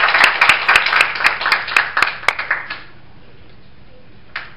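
Audience applauding: many hands clapping, dying away about three seconds in. After that there is a quiet room, with a single short sound near the end.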